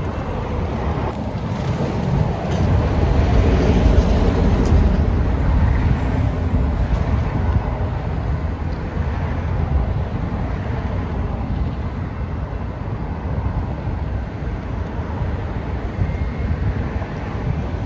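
Steady rumble of road traffic, with trucks crossing a highway overpass, and wind on the microphone. It swells a few seconds in, then settles to an even rumble.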